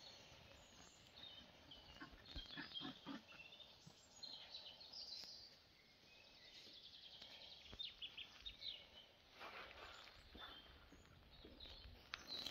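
Faint outdoor ambience with scattered short, high bird chirps and a few soft knocks.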